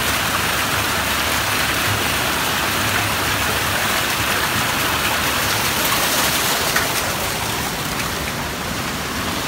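Swollen, fast-flowing river water rushing and splashing, a steady roar of white water, a little softer near the end. The river is running high and muddy after typhoon rain.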